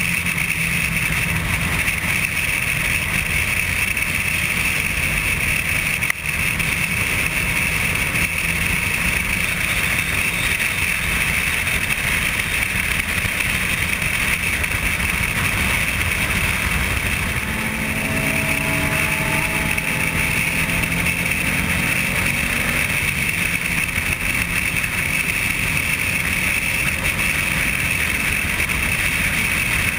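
Motorcycle riding at highway speed, heard from the bike: steady wind rush over the microphone with the engine running underneath. A few engine notes rise in pitch about 18 seconds in, and there is a single sharp click about 6 seconds in.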